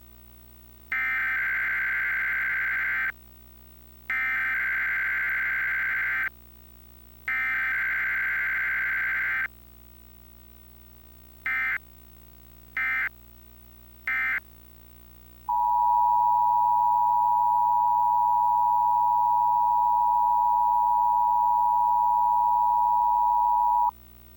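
Emergency Alert System tones. First come three digital data header bursts, each a harsh warbling buzz about two seconds long, then three short bursts. Then the steady two-tone attention signal sounds for about eight seconds and cuts off.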